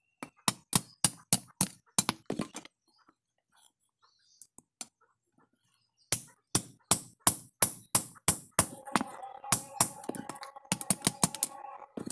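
Hammer blows on the iron rivet at the pivot of a pair of forged tongs on the anvil, riveting the two halves together, at about three sharp strikes a second. The blows pause for about three seconds in the middle, then go on with a steady ringing tone under them in the last few seconds.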